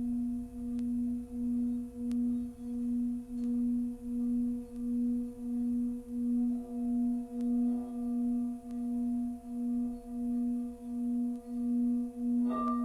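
Singing bowl sounding a sustained low tone that swells and fades about twice a second, with fainter higher tones ringing above it. Near the end another bowl is struck once and rings on at a higher pitch.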